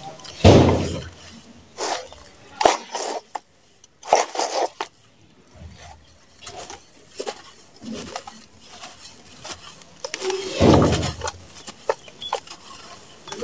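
Sand-and-cement slabs crumbling under hands in a metal basin: wet squelching and splashing in muddy slurry, then dry, gritty crumbling with powder falling near the end. Two loud squelching crumbles, about half a second in and near the end, with scattered crunches between.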